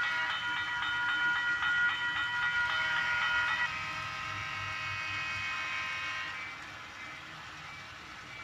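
HO-scale model grade-crossing bell ringing rapidly, about four strikes a second, while the crossing signals flash for the passing train. It cuts off abruptly after about three and a half seconds, leaving a fainter steady sound that fades away.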